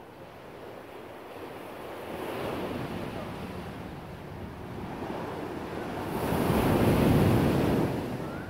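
Ocean surf washing in on a beach: a steady rush of waves that swells to its loudest near the end and then fades, with some wind on the microphone.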